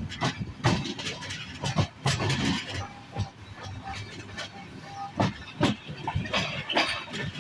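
Moving passenger train heard from inside the coach: irregular clanks and knocks of the wheels over rail joints and points, over a running rumble, with a few short faint squeals.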